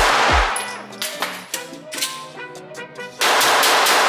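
Two shots from a Glock 19 pistol at an indoor range, each a loud crack with a long ring-out off the walls. The first is still ringing out at the start; the second comes about three seconds in. Background music plays underneath.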